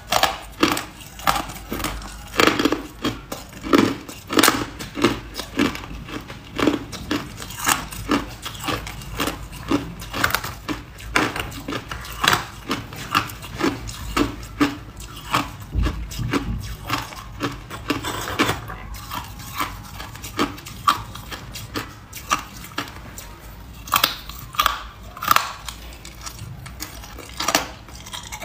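A person biting and chewing hard ice close to the microphone, a steady run of crisp crunches coming about two a second.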